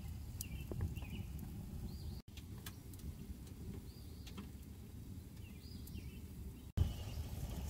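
Freshly lit kindling burning in a small titanium wood stove: a low steady rumble with a few faint sharp crackles. Birds chirp faintly and briefly now and then over it.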